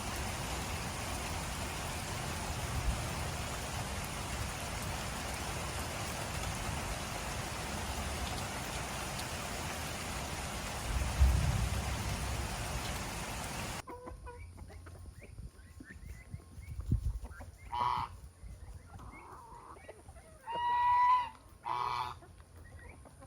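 A steady hiss for the first fourteen seconds or so, then an abrupt cut to a quieter farmyard where domestic geese honk several times among faint clucking of fowl.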